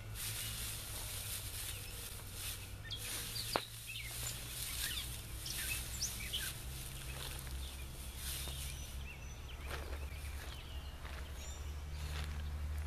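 Bare feet treading cob (clay, sand and wheat straw) on a plastic tarp: straw rustling and tarp crinkling in many short crackles, with one sharper tick about three and a half seconds in, over a low steady hum.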